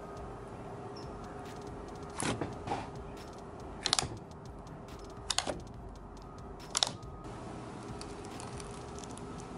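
Jelly slime being poked, pulled and pressed by hand, giving about half a dozen short wet clicks and pops spread from about two to seven seconds in, over a faint steady hum.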